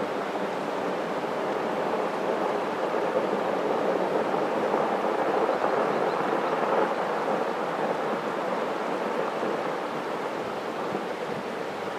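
Snow avalanche pouring down a cliff gully, a continuous rushing noise that swells a few seconds in and eases toward the end.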